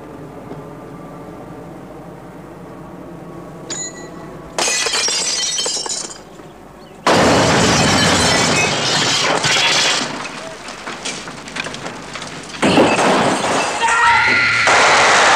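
Glass shattering as windows are smashed in, then a loud explosion blowing out a window with debris falling, followed by more crashing and a shout near the end.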